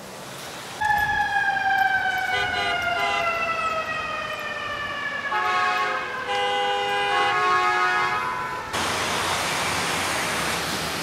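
Emergency vehicle siren, a long wail slowly falling in pitch, followed by several seconds of steady multi-note horn blasts. A loud rushing noise comes in near the end.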